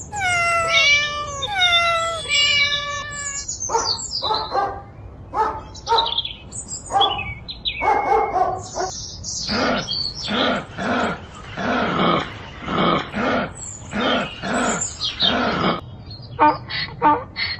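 Domestic animal calls one after another: a cat meowing a few times with long falling calls, then a dog barking repeatedly, about once a second, and quicker short calls near the end.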